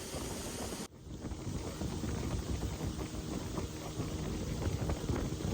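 Motorboat under way on a river, engine and water noise mixed with wind buffeting the microphone. A sudden change in the sound about a second in.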